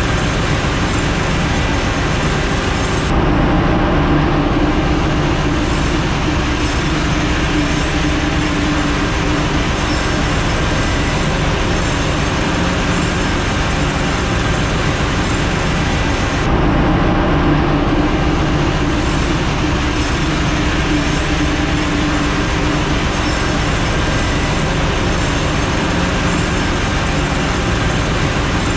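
Loud, steady ship engine-room machinery noise, a dense drone and hiss of running machinery, heard while the main engine stands stopped for a cylinder liner change. Twice the sound changes abruptly: the high hiss dulls and a low hum comes forward.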